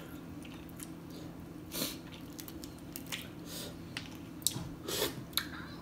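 Sun-dried Asian clam shells clicking as they are pried apart by hand, with chewing in between: a handful of short, sharp clicks, the loudest near the end, over a steady low hum.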